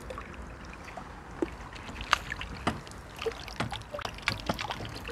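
A hooked crucian carp thrashing at the water surface, making a string of irregular small splashes and slaps, the loudest about two seconds in.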